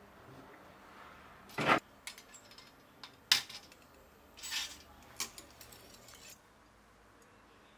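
Metal clinks and clacks of a steel firing fork and mesh trivet as a freshly fired enamel piece is taken out of a small electric enamelling kiln and set down on a stone worktop. The loudest clack comes about one and a half seconds in and a sharp clink a little after three seconds, then a brief scrape and a few lighter clinks.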